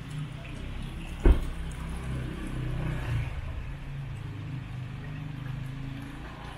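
Street traffic running by with a steady low engine rumble, and one sudden thump about a second in.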